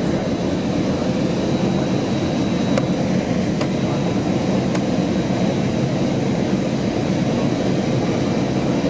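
Steady in-flight cabin noise of an Airbus A321-211 descending: an even low rumble of airflow and engines, with a faint steady high tone and a few faint ticks near the middle.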